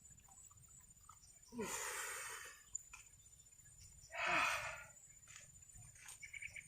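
Two heavy, breathy exhales, each about a second long and a couple of seconds apart, each opening with a short falling voiced sound.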